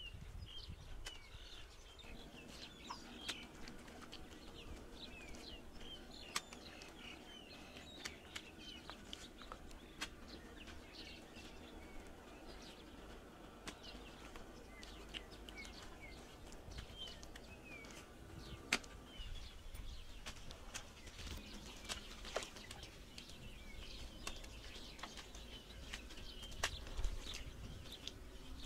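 Small birds chirping over and over, with scattered sharp knocks and taps from work on the bamboo roof frame, over a low steady rumble.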